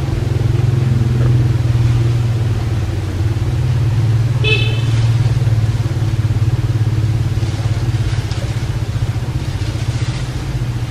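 A motor engine running steadily nearby: a loud, low, evenly pulsing drone. About halfway through there is one brief high-pitched call.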